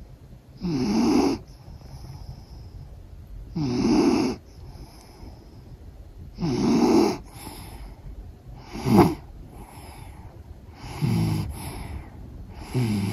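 A sixteen-year-old Jack Russell Terrier is asleep and snoring loudly. It gives a snore every two to three seconds, about six in all. The one about nine seconds in is shorter and sharper.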